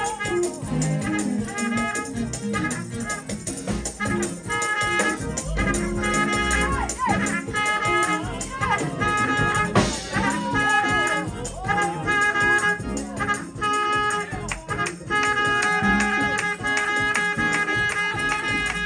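Live church praise-break music: fast, dense drumming under held, sustained chords.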